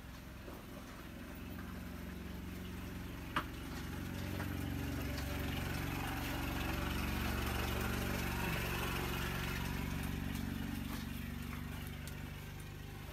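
A motor vehicle's engine humming low, growing louder toward the middle and fading again, as it passes. A single sharp click about three seconds in.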